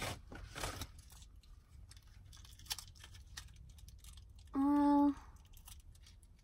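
Faint crinkling and clicking of a small condiment packet being handled, then quiet chewing. About halfway through comes a short closed-mouth "mm" hum, held on one pitch for about half a second.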